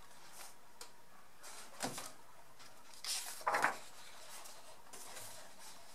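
Paper pages of a large coloring book being turned and pressed flat by hand: a few short rustles, the loudest a little past halfway.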